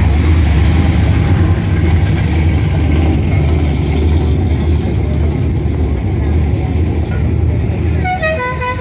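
Low, steady engine and exhaust rumble of a classic Chevrolet Chevelle driving past, easing off after about six seconds. Near the end a multi-note musical car horn starts playing a tune.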